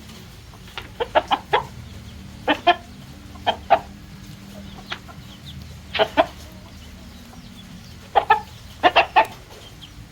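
Chickens clucking: short calls coming in quick clusters of two to four, every second or two, over a steady low background hum.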